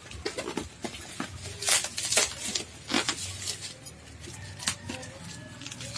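Scissors snipping through packing tape on a bubble-wrap parcel, the plastic wrap crinkling and crackling in short irregular bursts of handling noise.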